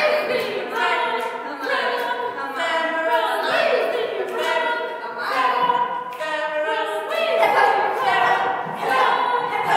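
Several voices singing an a cappella chant in overlapping layers, without instruments.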